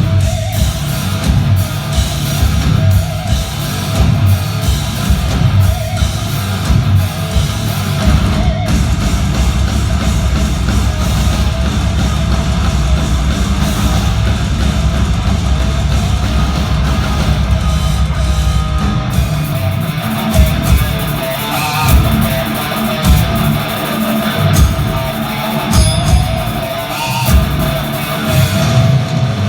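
A heavy metal band playing live: loud distorted electric guitars over a drum kit, continuous throughout, with the low end turning choppier and more stop-start in the last third.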